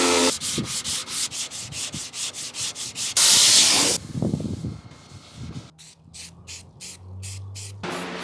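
Sanding on a car door panel in quick, even back-and-forth strokes, about five a second, with a loud hissing burst lasting under a second about three seconds in.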